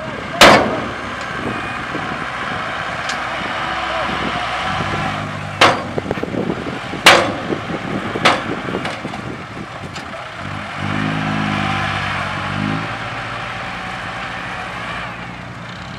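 Diesel dump truck engine running as the tipper bed comes down after dumping, with four loud metal bangs in the first half from the bed and its swinging tailgate. The engine works harder for a couple of seconds later on as the truck moves off.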